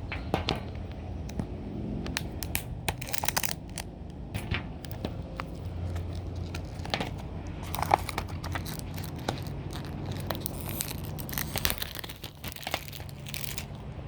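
Plastic shrink-wrap on a DVD case being cut and torn open, crinkling and tearing with scattered sharp clicks.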